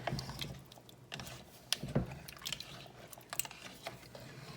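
Cookware being handled over a pot of curry: a run of irregular light clicks and knocks, with one louder knock about two seconds in.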